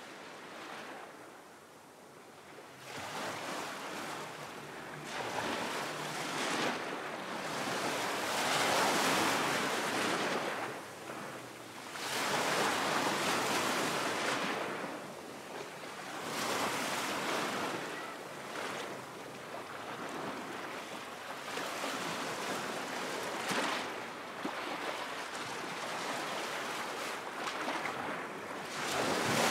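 Ocean waves washing in, swelling and fading in long surges every few seconds.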